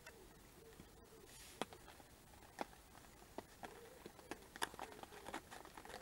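Faint, scattered raindrops tapping at irregular intervals over a low steady hiss.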